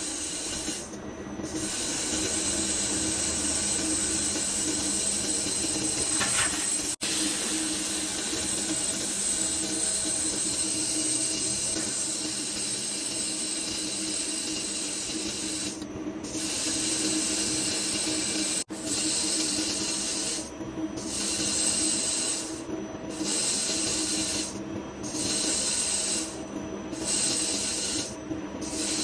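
CNC turning-milling machine cutting a large 340 mm disk: a steady machine hum under a high hiss of cutting. The hiss drops out for brief moments several times in the last third.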